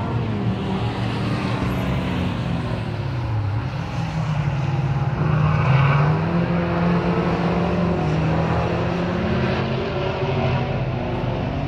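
Engines of several sports cars running on a racing circuit, their pitch rising and falling as they accelerate and change gear, loudest about halfway through.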